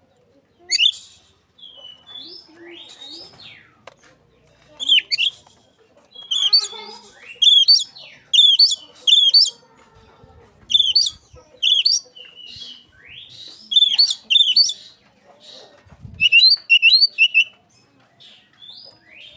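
Oriental magpie-robin singing in short loud bursts: quick runs of sharp repeated notes alternating with rising whistles, a song that mimics the Asian pied starling.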